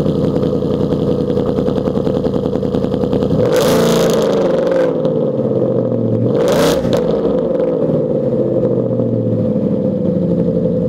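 2015 Mustang GT's 5.0 L V8 through a Borla S-Type stainless cat-back exhaust with X-pipe, idling just after start-up with an aggressive, raspy tone. It is revved twice, a longer rev about three and a half seconds in and a short blip about six seconds in, settling back to idle after each.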